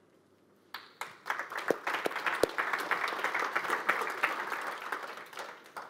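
Audience applauding: clapping begins about a second in, swells, then dies away near the end.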